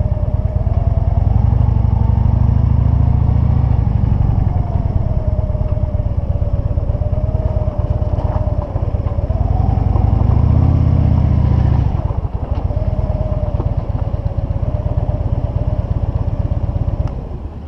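Motorcycle engine running at low speed, its note rising twice as the throttle opens and then settling back. Near the end the engine sound drops away sharply.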